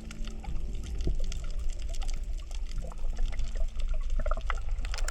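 Underwater coral-reef crackle: a dense patter of fine clicks over a low rumble of water. This is the crackling that the uploader takes for coral breathing. Musical tones fade out in the first half-second.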